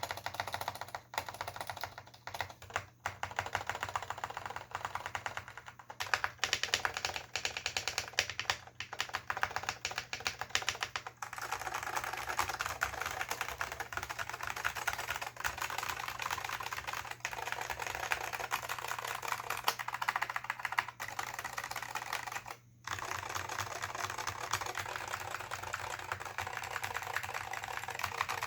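Typing on a Dell AT101 keyboard with Alps SKCM Salmon switches and PBT dye-sub keycaps: a stream of keystroke clicks, uneven at first and then fast and continuous from about eleven seconds in, with one brief pause later on.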